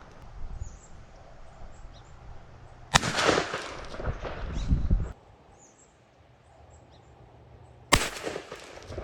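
Two shotgun blasts about five seconds apart, fired with buckshot at a blacktail buck. The first is the louder, with about two seconds of rumbling noise after it.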